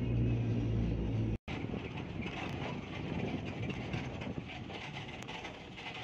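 A car's engine and road noise heard from inside the cabin, a steady low hum that cuts off suddenly about a second and a half in. It is followed by quieter open-air background noise.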